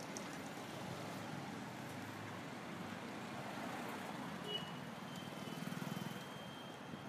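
Steady road traffic noise, with a motor vehicle's engine running a little louder about five to six seconds in and a few faint high chirps near the end.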